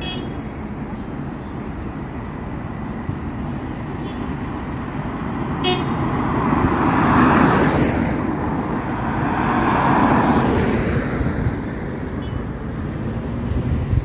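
Two cars pass close by one after the other, the engine and tyre noise of each swelling and fading about seven and ten seconds in, over a steady background of street traffic.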